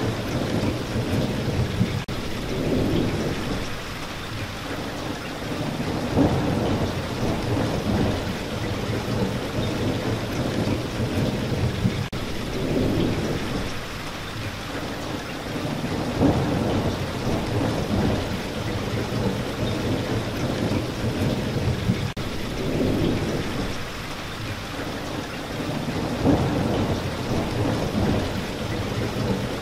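Steady heavy rain with low rolling thunder that swells and fades over and over.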